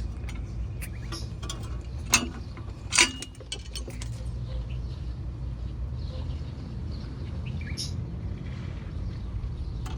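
Car's low steady rumble with two short, sharp brake noises about two and three seconds in, the second with a brief high ring.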